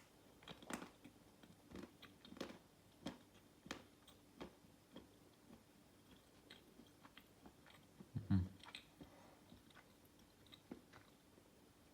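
Close-up chewing of a square of 85% dark chocolate, with irregular crisp clicks and small crunches from the mouth. There is one louder, lower mouth sound about eight seconds in.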